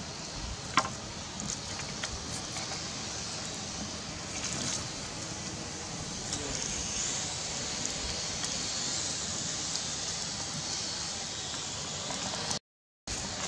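Small wood fire burning, a steady hiss with scattered crackles and pops, the sharpest about a second in.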